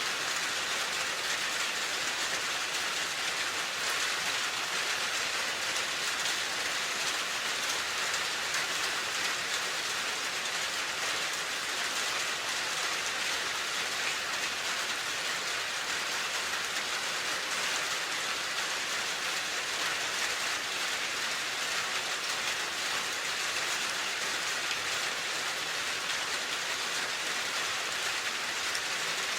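Steady rain falling on a surface: an even, continuous hiss of many small drops.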